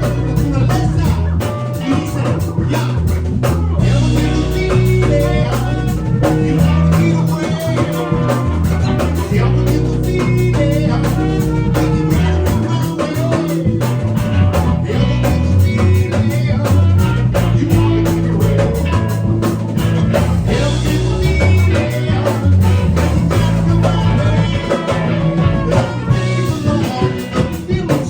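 A band playing: a driving bass line under drum kit and guitar, the beat keeping up steadily throughout.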